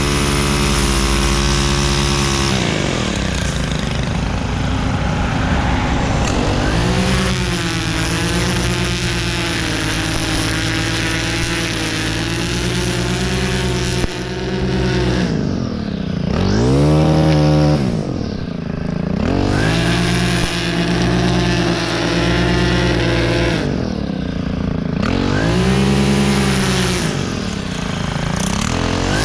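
STIHL FS 131 R string trimmer's four-stroke 4-MIX engine running at high throttle while the spinning line cuts grass along a concrete edge. The engine note dips and recovers several times, mostly in the second half.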